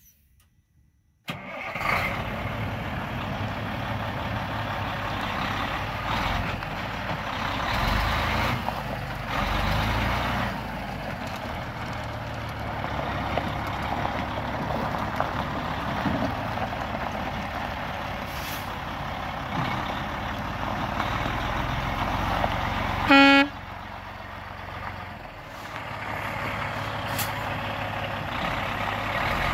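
Diesel engine of a Freightliner Columbia truck tractor running while the truck is driven around, coming in about a second in, with some swells in level. A short, loud horn blast sounds about three-quarters of the way through.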